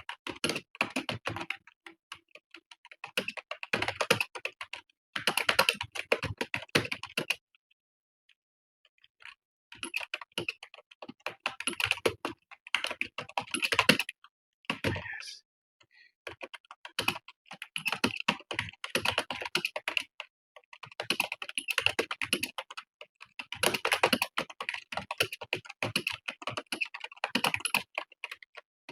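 Fast touch-typing on a computer keyboard: rapid runs of key clicks in bursts, with brief pauses, the longest about a third of the way in.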